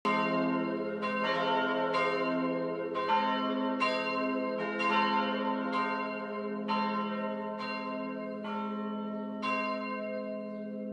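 Church bells ringing, a new strike about once a second over a steady low hum, slowly growing quieter.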